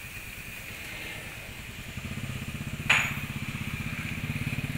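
Homemade electric-motor-driven roller stone crusher running, a steady whine over a low rhythmic drone that grows louder about two seconds in. A single sharp ringing knock near three seconds in is the loudest sound.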